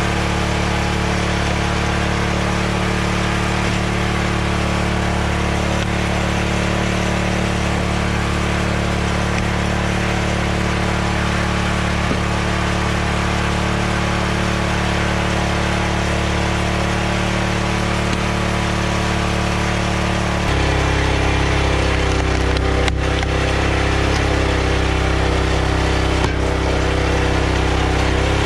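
Hydraulic log splitter's gas engine running steadily. About twenty seconds in, its tone changes and it gets slightly louder as the splitter works a log, and two sharp cracks of wood splitting come near the end.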